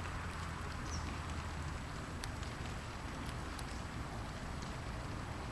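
Steady outdoor background hiss with a low rumble, broken by a few faint clicks and a brief high chirp about a second in.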